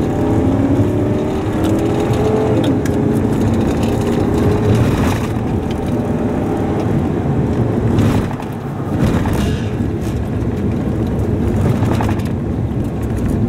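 Road noise inside a vehicle's cab driving on a gravel road: a steady rumble of tyres and engine, with the engine note rising over the first couple of seconds. A few sharp knocks come from the road surface.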